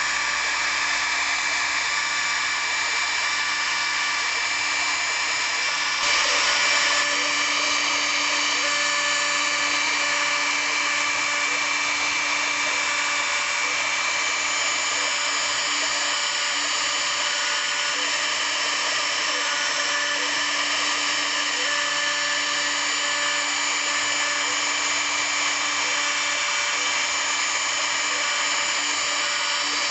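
Hobby CNC router spindle running with a steady whine while milling wood, with motor tones shifting in pitch as the machine moves; briefly louder about six seconds in.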